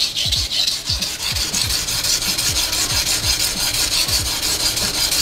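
Nishida kurouchi petty knife blade being stroked back and forth on a wet whetstone, a rhythmic gritty scraping of about two to three strokes a second. This is heavy grinding of the edge to take out a chip.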